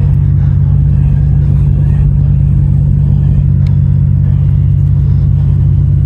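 Inside an Endeavour diesel railcar running at speed: a steady low drone from the diesel engine, with the rumble of the wheels on the track.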